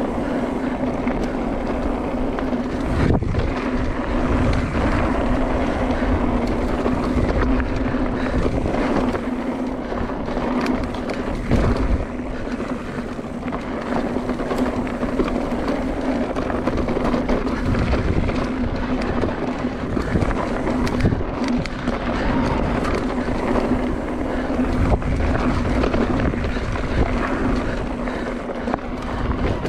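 Mountain bike riding along a rough dirt trail: wind buffeting the on-bike camera's microphone over the rolling of knobby tyres on gravel, with a steady hum underneath and a few sharp knocks from bumps in the trail.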